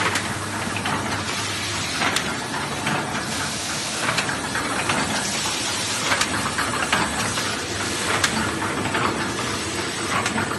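Paper carton erecting machine running, forming take-away boxes: a steady mechanical clatter and hiss with repeated sharp clicks, the strongest about every two seconds.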